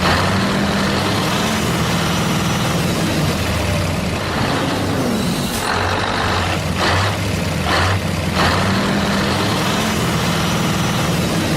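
A heavy-vehicle engine running steadily with a low drone, with a few short hissing bursts in the second half.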